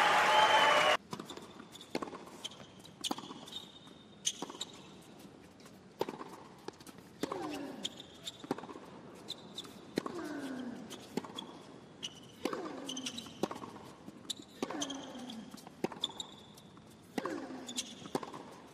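Tennis rally on a hard court: a ball struck by rackets and bouncing, a sharp knock about once a second with a short ring after each, and brief shoe squeaks between shots. Applause cuts off about a second in.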